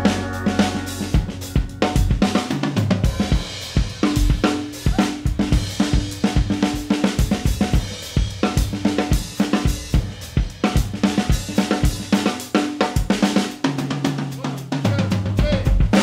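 Drum kit solo: fast strokes on snare and toms with bass drum, hi-hat and Sabian cymbals, played in continuous fills.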